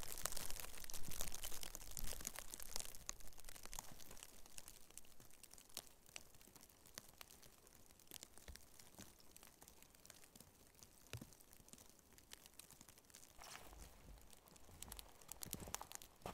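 Crunching and crackling handling sounds, dense for the first three seconds, then scattered faint clicks and snaps.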